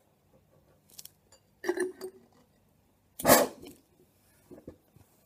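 Paint-thinner vapour igniting inside a glass jar pulse jet: a smaller puff a little under two seconds in, then a louder short whoosh about three seconds in as the jar fills with flame. A few light clicks and taps come before and after.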